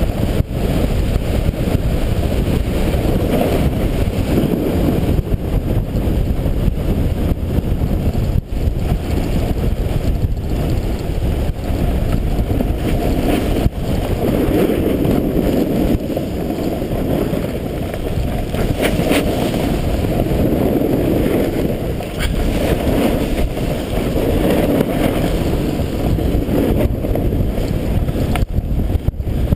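Wind rushing over a riding snowboarder's camera microphone, mixed with the snowboard running and scraping over packed groomed snow. Loud and steady throughout, swelling and easing a little with speed.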